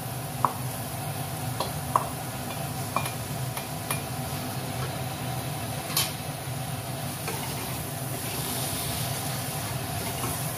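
Fried potato cubes being stirred into sizzling masala in a kadhai with a wooden spatula: a steady sizzle with a handful of sharp knocks of the spatula against the pan.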